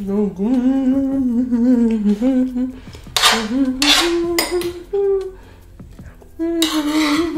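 A woman humming with her mouth closed, a long wavering note at the start followed by shorter held notes. Short bursts of a metal spoon scraping and clinking on the dish come between the notes.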